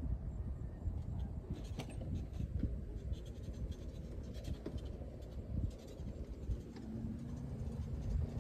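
Wind rumbling and buffeting on the microphone, with scattered faint scratches and ticks and a sharper click about two seconds in. A faint steady hum comes in near the end.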